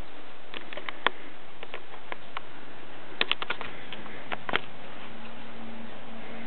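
Cocker spaniels' claws clicking and pattering irregularly in small clusters over a steady hiss. A faint low hum comes in about four seconds in.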